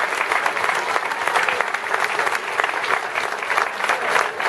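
Large audience applauding: dense, steady clapping of many hands.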